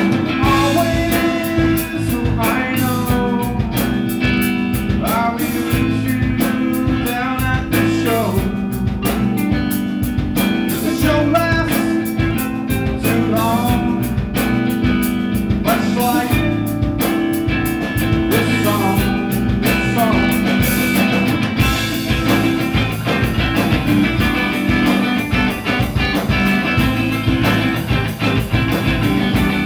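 Live post-rock band playing, with electric guitars and drums under a man singing into the vocal microphone. About twenty seconds in the singing stops and the band plays on instrumentally.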